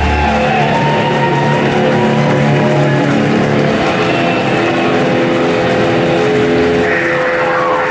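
Electric guitar ringing out through the stage amplifiers in long held, shifting notes, with a deep bass note that cuts off about half a second in.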